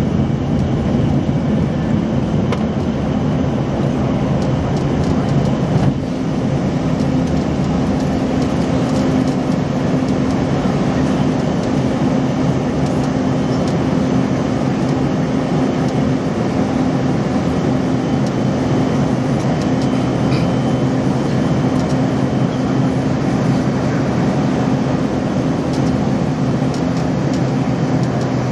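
Steady cabin noise inside an Embraer ERJ-145 regional jet climbing out after takeoff: the rush of air and the drone of its rear-mounted Rolls-Royce AE 3007 turbofan engines, with a low steady hum. The level dips briefly about six seconds in.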